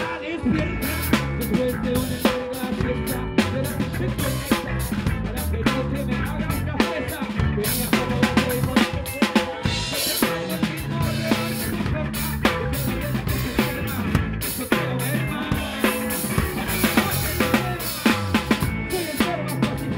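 Live band playing, heard from right beside the drum kit: the drums are loudest, with fast, dense snare, bass drum and cymbal hits over a bass guitar line.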